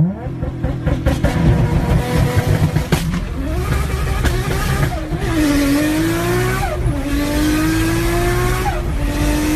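Car engine accelerating hard through the gears. Its pitch climbs, then drops suddenly at each shift, about three times in the second half.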